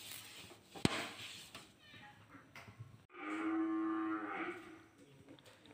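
One sharp knock about a second in, then past the middle a single long, steady, low-pitched call lasting about a second and a half.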